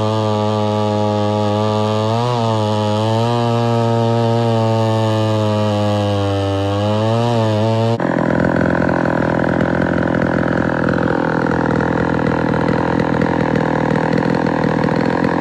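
Two-stroke chainsaw engine running at high revs, its pitch dipping briefly twice. About eight seconds in it cuts abruptly to a rougher, rattling engine sound.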